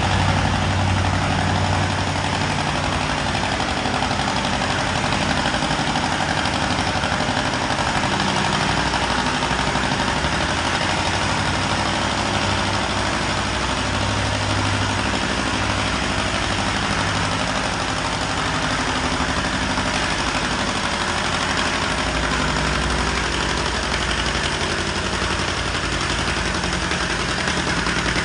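Antique John Deere two-cylinder tractor engine running steadily under load as it slowly pulls a weight-transfer sled.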